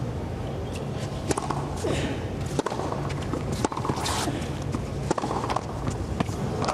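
Tennis rally on a hard court: sharp knocks of racket strikes and ball bounces about every second, with a short grunt from a player on a couple of the shots.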